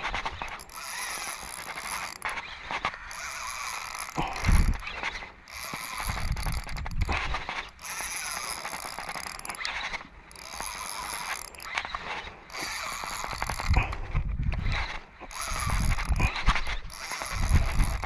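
Spinning reel being cranked to wind in line, a steady mechanical whirr of the rotor and gears broken by short pauses. Wind buffets the microphone with low rumbles several times, loudest about four and a half seconds in.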